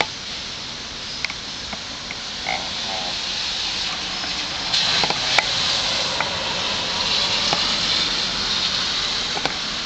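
Steady rain falling, with scattered drips tapping. A car passes on the wet street, its tyre hiss building about halfway through and easing off near the end.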